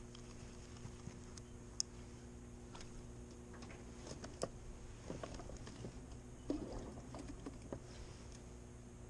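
Scattered light clicks and knocks of rod-and-reel handling in a small fishing boat, clustered about halfway through and again near the end, over a steady faint hum.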